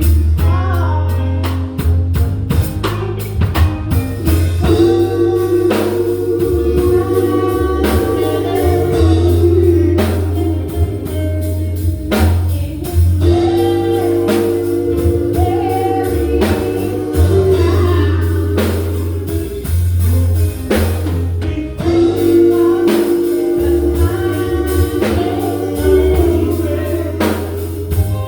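Gospel group singing to a live band: drum kit, bass, electric guitar and keyboard playing steadily under the voices.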